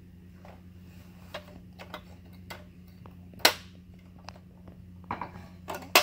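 Sharp plastic clicks and knocks as a baby's hands work the knobs and dials of a plastic pop-up toy: a scattered run of single clicks, with the loudest about three and a half seconds in and another right at the end, over a steady low hum.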